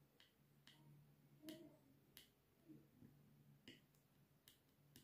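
Faint scattered clicks and taps, about seven, as fingers press the Samsung Galaxy A51's back panel down onto the phone body; the loudest comes about a second and a half in.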